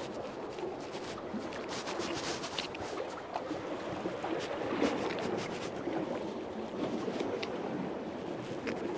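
Steady wash of sea water around the pier, with scattered small clicks and taps of a knife as mackerel are cut open and gutted by hand.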